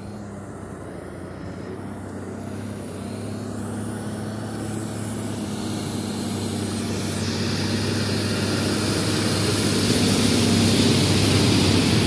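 Heavy tractor-trailer's engine running with a steady low hum, growing steadily louder as the truck approaches through a flooded mud track. From about the middle on, a rising hiss of its wheels splashing through the water joins the engine.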